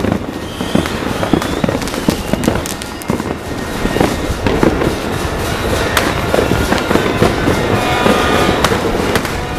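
Fireworks and firecrackers going off in quick succession: a dense, continuous crackle of pops and bangs. A few held high tones come in around eight seconds in.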